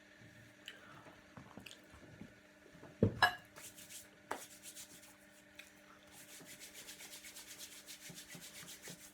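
Chalk crunching close to the microphone: a sharp loud crack about three seconds in, a few smaller crunches, then a fast, even rubbing sound near the end.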